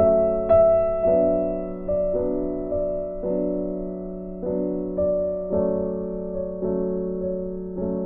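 Slow solo piano music: chords struck about once a second and left to ring and fade.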